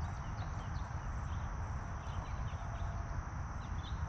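Outdoor ambience: a steady low rumble with many short, high bird chirps scattered through it.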